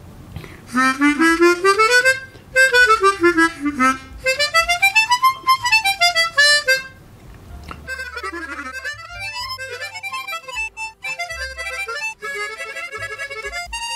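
Hohner Chrometta 12 chromatic harmonica, in its out-of-the-box factory state, played as two loud up-and-down scales, the second an octave higher than the first. After a brief pause it goes into quieter phrases of quick notes.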